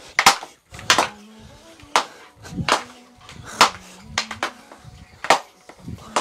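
Hockey stick blade clacking against a puck on a plastic dryland surface during fast stickhandling: sharp knocks, roughly one or two a second, at an uneven pace.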